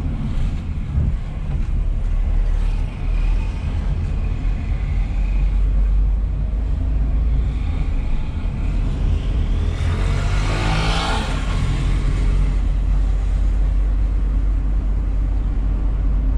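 Car driving along a town street, heard from inside the cabin: a steady low engine and road rumble, with a brief rise in hissing noise about ten seconds in.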